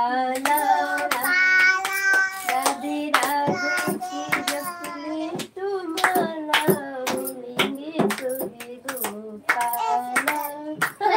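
A group, children among them, singing a Hindi devotional bhajan in long held notes, with a steady rhythm of hand claps running under the singing.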